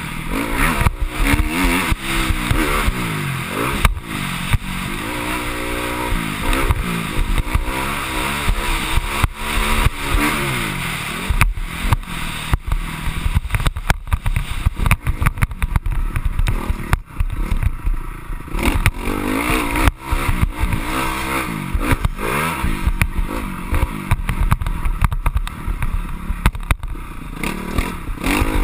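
Honda CRF250R motocross bike's 250 cc single-cylinder four-stroke engine, heard from a camera mounted on the bike, revving up and dropping back over and over as the rider accelerates, shifts and rolls off over the track. Short knocks and rattles from the bike over the bumps come through throughout.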